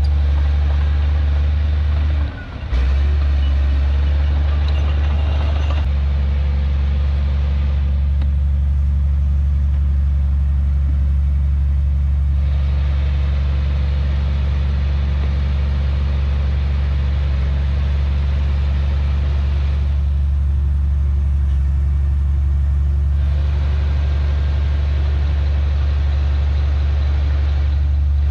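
Heavy diesel engine of earthmoving machinery running steadily with a deep drone. It drops out briefly about two seconds in, and a brighter, rougher noise over the drone rises and falls in stretches of several seconds.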